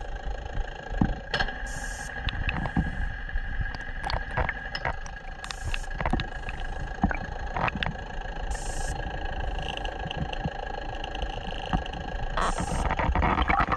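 uWAVE underwater acoustic modems communicating, heard underwater: four short, high-pitched bursts of signal about every three and a half seconds, over steady background tones and scattered sharp clicks.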